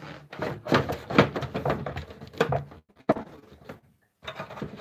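Handling noise: a quick run of knocks, clicks and clatter from objects being moved and set down, loudest in the first three seconds, then a brief quiet gap about a second from the end.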